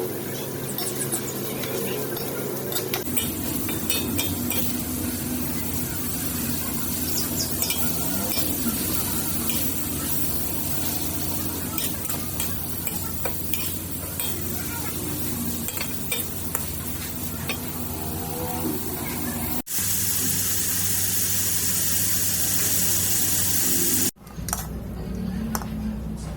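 Pork liver and ginger stir-frying in hot oil: a steady sizzle with a spatula clicking and scraping against the pan. The sound cuts abruptly twice, and in between comes a stretch of louder, even sizzling.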